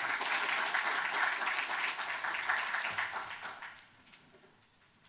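Audience applauding, dying away a little under four seconds in.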